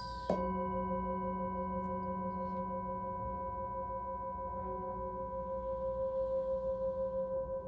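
Singing bowl struck once with a felt mallet about a third of a second in, ringing on with several steady overlapping tones. From about five seconds in, a wooden striker is rubbed around the rim, and the bowl's main tone swells with a pulsing wobble.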